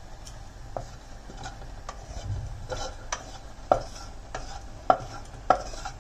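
Wooden spatula stirring dry spices around a non-stick kadai as they dry-roast, scraping the pan and knocking against it roughly once or twice a second. The sharpest knocks come in the second half.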